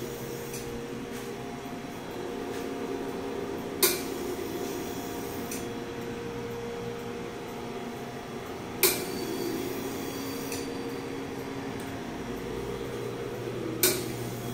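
Steady machine hum of laboratory equipment, with a sharp click repeating about every five seconds, three times.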